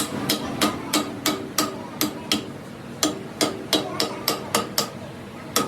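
Hammer blows on steel: about fifteen sharp strikes, roughly three a second, in runs with short pauses between them. Each strike rings briefly.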